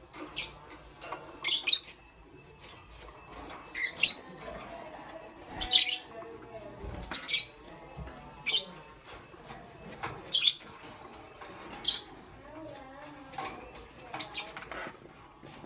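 Lovebirds chirping: about nine short, sharp, high-pitched chirps spaced every one and a half to two seconds, with quieter chattering between them.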